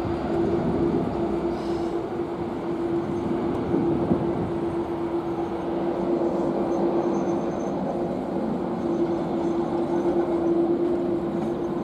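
Jet airliner engines running at idle as the aircraft taxis: a steady drone with one constant hum through it.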